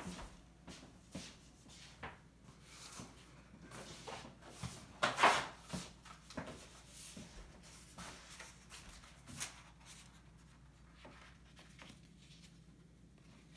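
Sheets of paper being handled, a run of short rustles and scrapes with the loudest rustle about five seconds in, growing quieter and sparser near the end.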